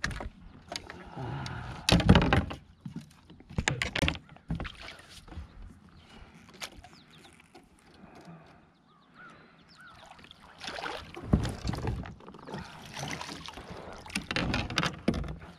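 Irregular knocks, bumps and rustling of gear being handled in a fishing kayak on the water, loudest about two seconds in, with more clusters of knocks later on.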